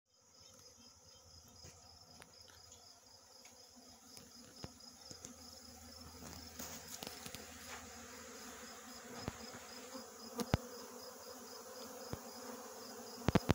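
Hum of a great many honey bees in flight, growing steadily louder, with a few sharp ticks in the last few seconds.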